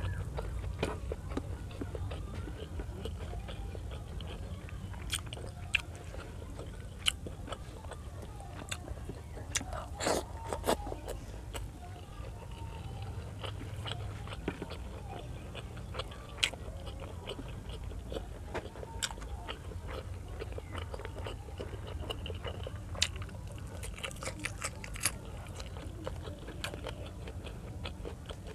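Close-miked chewing and wet mouth sounds of a person eating pork liver igado with rice, with many scattered sharp smacks and clicks, over a steady low hum.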